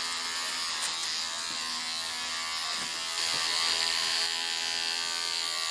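Electric hair clippers with a comb guard buzzing steadily as they cut hair, a little louder from about three seconds in.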